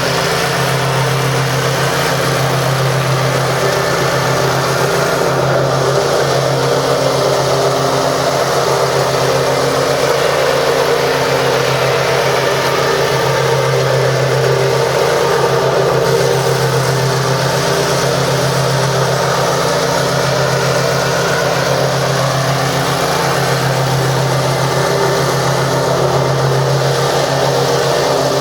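Kawasaki FH541V 17 hp V-twin engine of an Exmark Turf Tracer stand-on zero-turn mower running steadily at an even speed.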